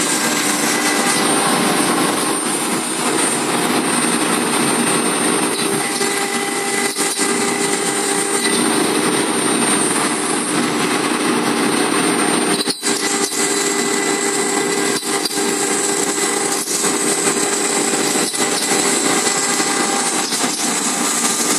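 CNC router spindle running at high speed while its bit mills through aluminium composite panel: a steady, loud whine over continuous cutting noise, with a brief break near the middle.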